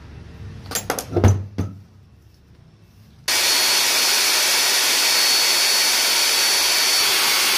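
A few handling knocks, then a Makita angle grinder switched on about three seconds in and running at full speed with a steady high whine. Its freshly fitted carbon brushes are bedding in against the commutator, which cuts down the sparking.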